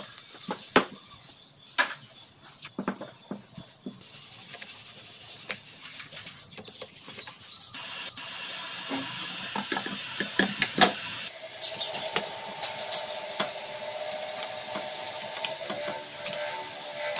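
Scattered metallic clicks, taps and clinks as small engine parts, bolts and a side cover are handled and fitted onto a motorcycle crankcase, the sharpest knock near the middle. Background music comes in about two-thirds of the way through.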